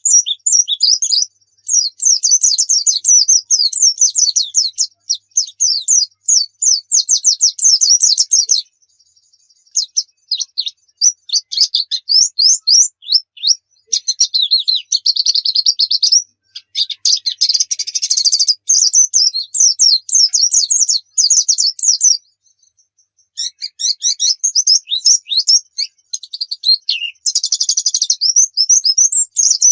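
White-eye (pleci) song: long runs of rapid, high-pitched twittering, broken by a few short pauses.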